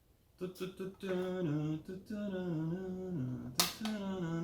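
A voice humming a tune in held notes that step up and down, with one sharp click about three and a half seconds in.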